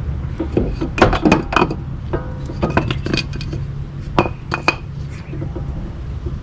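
Metal parts clinking and knocking as the greased axle joint is worked into place: short sharp clinks in small clusters.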